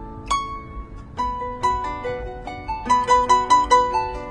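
Paraguayan harp playing: a single plucked note rings about a third of a second in, then from about a second in a melody of plucked notes over lower notes, quicker and louder around three seconds in with a repeated high note.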